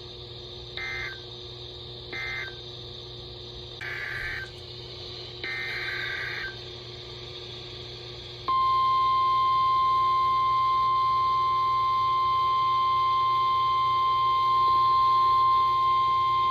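NOAA Weather Radio alert signals. First come short screeching SAME digital data bursts: the last end-of-message codes, then two longer bursts that begin the next alert's header. After that, the steady single-pitch 1050 Hz warning alarm tone sounds for about nine seconds.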